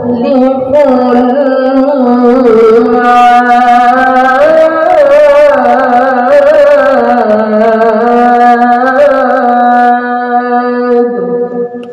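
A boy's voice reciting the Quran in melodic tilawah style into a hand microphone: long held notes with ornamented turns in pitch. The phrase tails off near the end.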